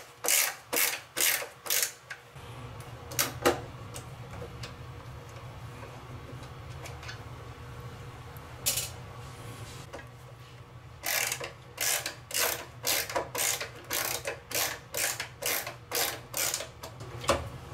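Ratcheting screwdriver clicking as it backs out the mounting screws of a shower mixer body, about two clicks a second. A few clicks come first, then scattered single clicks, then another steady run from about eleven seconds in. A low steady hum starts about two seconds in.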